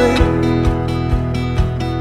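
Background music: an instrumental stretch of a song, with guitar and a steady beat of about two low drum hits a second.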